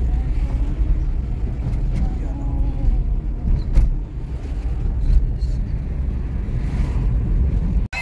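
Steady low road and engine rumble inside a moving car's cabin, with a faint voice underneath; it cuts off abruptly near the end.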